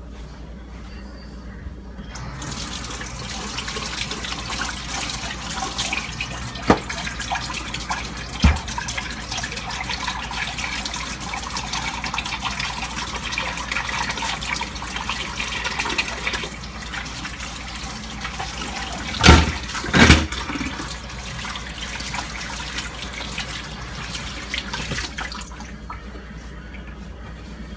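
Water running steadily from a kitchen tap, starting a couple of seconds in and shutting off shortly before the end. Two small clicks and then two loud knocks close together come about two-thirds of the way through.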